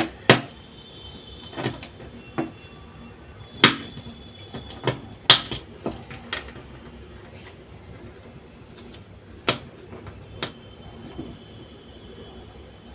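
Scattered light clicks and knocks, about eight of them at irregular intervals, from the parts of a hair trimmer's blade head being handled during repair, over a faint steady background hiss.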